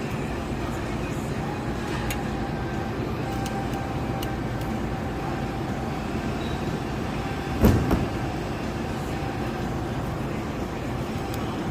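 Small screws and metal bracket parts being handled and fitted: a few light clicks, then a sharp double clunk near the eight-second mark. A steady machine hum with a faint constant tone runs underneath.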